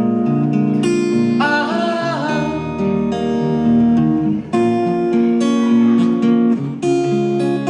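Acoustic guitar strumming sustained chords in an instrumental break between sung lines, with a short wavering vocal note about a second and a half in.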